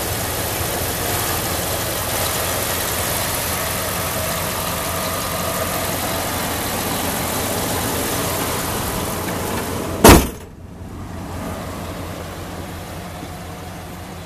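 Dodge Ram 2500 engine idling steadily with the hood open, then the hood slammed shut about ten seconds in with one loud bang. After the bang the idle sounds quieter and duller.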